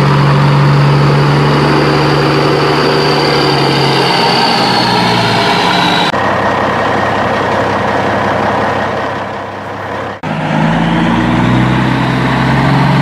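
Motor vehicle engine running with a steady low hum. The sound changes abruptly about six seconds in, breaks off briefly near ten seconds, then picks up again.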